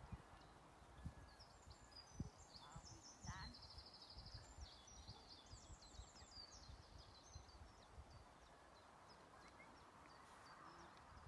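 Faint songbird song: a string of high chirps and trills over the first seven seconds or so, above a low rumble with an occasional thump, the loudest about two seconds in.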